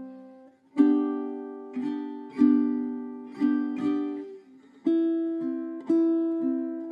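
Solo low-G ukulele fingerpicked in a slow instrumental melody: single plucked notes and chords ring out and fade one after another, with a short pause just before a second in and another about four and a half seconds in.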